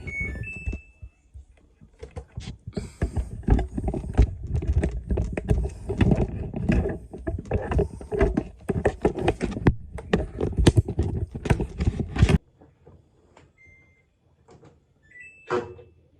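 Dense, irregular rattling and knocking for about ten seconds, which stops abruptly. It is followed by a few short, high electronic beeps from a Samsung washing machine's control panel.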